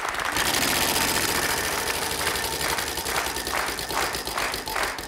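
Big game-show prize wheel spinning, its pointer ticking against the pegs on the rim: a fast blur of ticks at first, slowing to about three ticks a second as the wheel runs down.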